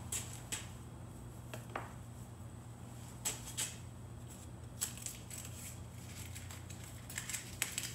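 Faint rustling and scattered light clicks of the seal's installation rope and tape being handled, as the loose rope ends are gathered and taped up. A steady low hum runs underneath.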